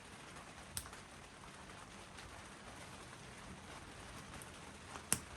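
Two sharp clicks of small metal parts of Felco pruners being handled and fitted back together, a light one about a second in and a louder one near the end, over faint room hiss.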